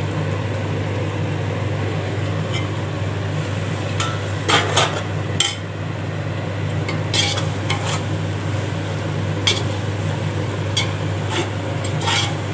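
Chopped tomatoes frying in hot oil in a large metal pot, sizzling steadily. From about four seconds in, a perforated steel ladle scrapes and clinks against the pot several times as they are stirred.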